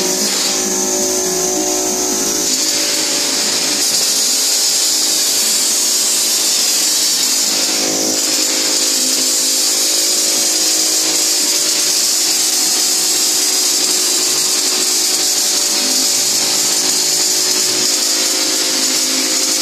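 Drywall texture hopper gun spraying mud: a steady hiss of compressed air through the gun, with a steady machine hum under it.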